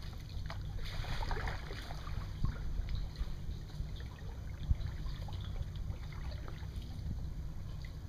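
Kayak paddle strokes: the blade dipping and splashing, with water trickling off it, over a steady low rumble. A splash about a second in, scattered small ticks, and a single sharp knock a little past halfway.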